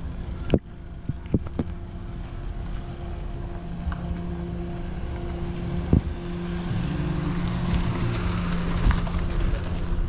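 A motor vehicle's engine running at a steady speed, with wind on the microphone and a few sharp knocks, the loudest about half a second in and another about six seconds in.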